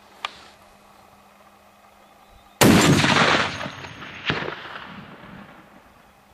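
A single shot from a Barrett M82A1CQ .50 BMG semi-automatic rifle: a loud, sudden blast that rings out and dies away over more than a second, followed about a second and a half later by a second sharp crack.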